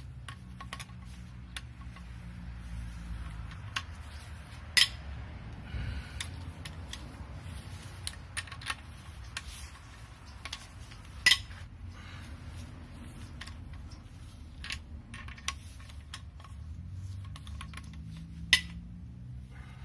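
Hand tools clicking and clinking on an aluminium cylinder head as the head bolts are loosened with a wrench. Three loud, sharp cracks, about seven seconds apart, as bolts break loose.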